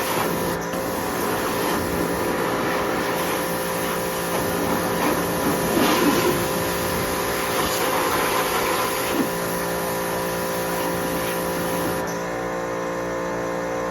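Electric pressure washer running: a steady motor hum under the hiss of the high-pressure water jet. Near the end the spray hiss drops away and guitar music comes in.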